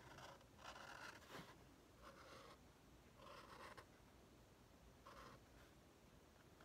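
Black felt-tip marker scratching faintly across a cardboard tube in several short strokes, about a second apart.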